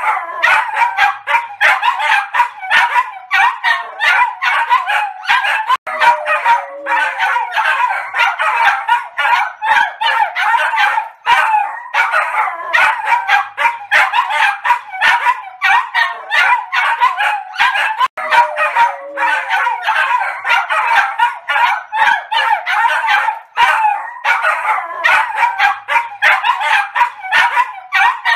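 Three small dogs, a Maltese among them, barking and yipping together nonstop. The high-pitched barks come thick and fast and overlap, with almost no pause.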